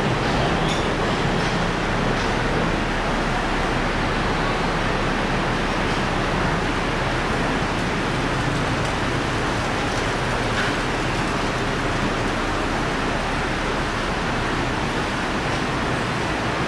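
Heavy rain falling on a metal roof overhead: a steady, even hiss.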